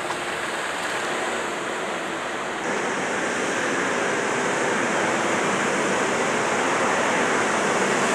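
Heavy-haul truck's engine and tyres as a steady rushing noise that grows louder as it approaches, with a step up about a third of the way in.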